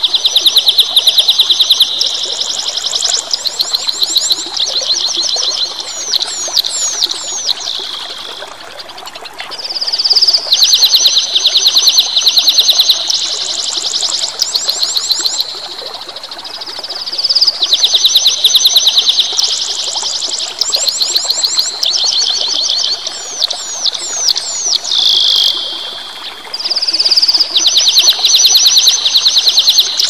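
A small songbird singing long phrases of very fast, high, rapidly repeated trilling notes, with a few quick downward-swept whistles mixed in. The same kind of phrase comes back about every eight seconds with short pauses between. Beneath it runs a steady rush of flowing water.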